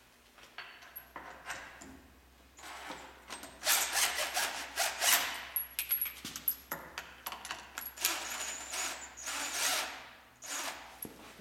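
Cordless drill running in several bursts, the longest lasting a couple of seconds, as it drives in the 16 mm bolts of a tractor rear mount bracket.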